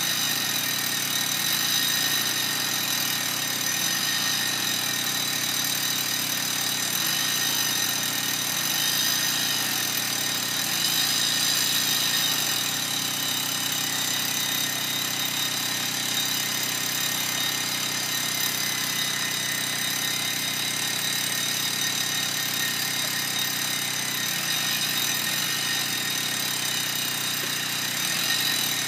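Electric drill running continuously, a steady motor whine that rises and falls slightly in pitch a few times.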